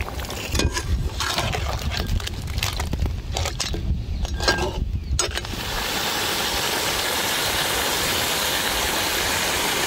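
A metal ladle clinking and scraping against a large aluminium pot of crab curry while it is stirred, over a low rumble. About halfway through, a steady even hiss takes over.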